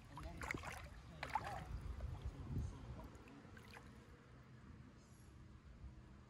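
Faint water splashing and gurgling at the surface as a released peacock bass swims off, in a few irregular splashes over the first four seconds, then quieter.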